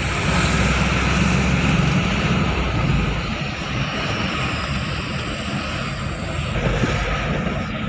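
Truck's diesel engine droning, heard inside the cab while driving. The low hum is strongest for the first two to three seconds, then eases off as the throttle comes back.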